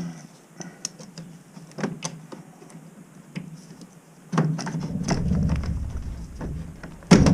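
Handling noise from plumbing work: scattered light clicks and knocks of parts and tools. About four seconds in, a louder low rumbling scrape lasts a few seconds, then comes one loud knock near the end.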